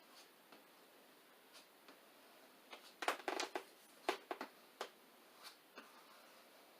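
Plastic squeegee being worked over a vinyl windshield decal on the glass to push out air bubbles: a quick run of short squeaks and scrapes about three seconds in, then a few single strokes.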